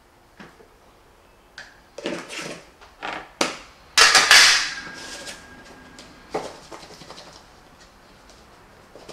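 A metal wire rack set down into a metal baking pan: a run of clatters and knocks, with the loudest clank about four seconds in, which rings briefly, and a last rattle about two seconds later.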